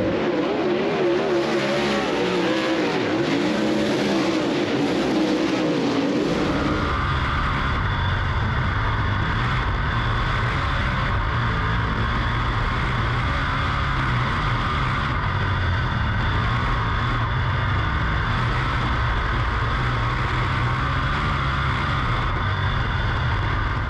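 Dirt late model race car engine running. About seven seconds in the sound changes from a wavering, varying pitch to a steadier drone with a low rumble.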